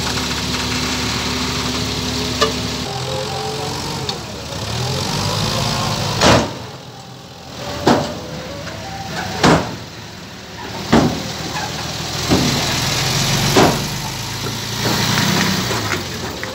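Diesel dump truck engine running, then revving while the raised bed tips out its load of earth. It is punctuated by six sharp bangs about every second and a half.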